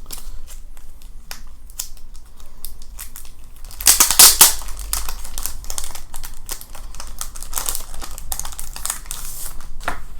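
Paper inserts of a Blu-ray collector's edition being handled: rustling and crinkling of a folded poster and cards, with small taps and clicks and a louder rustle about four seconds in.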